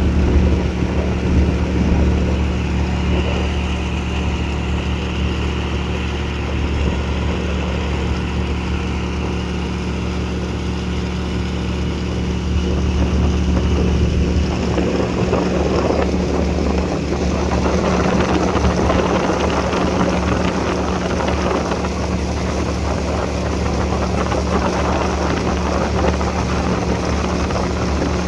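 Outboard boat motor running steadily under way, a low engine hum with wind and water rush. About halfway through the low hum drops back and the rushing noise grows.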